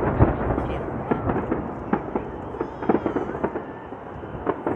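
Aerial fireworks from a large display: many sharp crackling pops over a low rumble of shell bursts. The rumble dies down after about three and a half seconds while scattered crackles go on.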